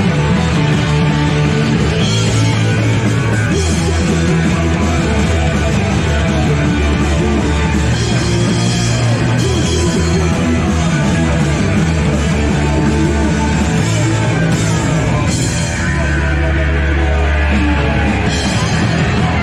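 Punk rock band playing live, loud and steady: distorted electric guitars and bass over a driving drum kit with frequent cymbal hits.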